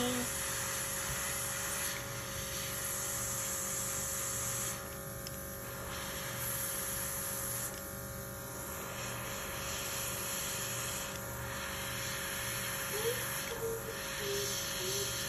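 Small airbrush compressor running with a steady hum, and the hiss of air from a pistol-grip airbrush; the hiss drops out briefly twice near the middle as the trigger is let off.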